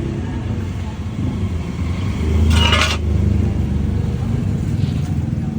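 Bajaj Pulsar motorcycle engine running steadily, swelling louder for a moment about two and a half seconds in with a short burst of hiss.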